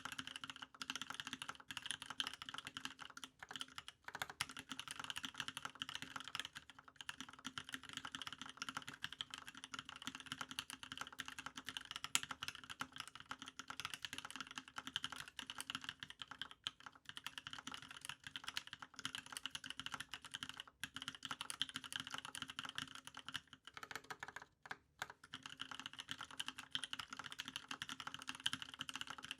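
Fast continuous typing on a TGR Alice mechanical keyboard with lubed Cream linear switches on 55 g springs, a brass plate and GMK keycaps: a steady stream of key clacks with a brief pause near the end.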